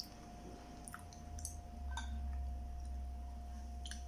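Faint eating sounds: a few soft clicks of chewing, over a steady low hum that grows louder about two seconds in.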